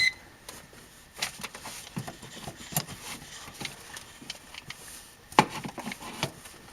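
Scattered clicks and knocks of hard objects being handled as a tool is worked into an electrical wall socket, with a short beep right at the start.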